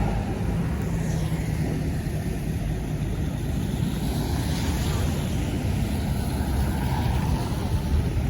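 Tour bus engine running steadily at low revs, a constant low hum with traffic noise around it.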